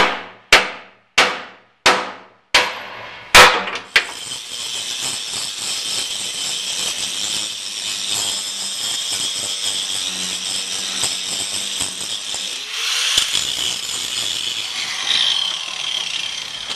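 About seven hammer blows on steel in quick succession, each ringing briefly, knocking loose a chain cleat whose weld has been ground away. Then a steady high-pitched grinding hiss and whine of an angle grinder working the steel.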